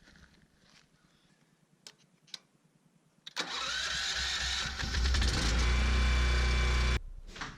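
A DeWalt 20V Max XR cordless orbital sander switched on: its motor rises in pitch as it spins up to speed, runs steadily for a couple of seconds, and cuts off sharply. A few faint clicks come before it starts.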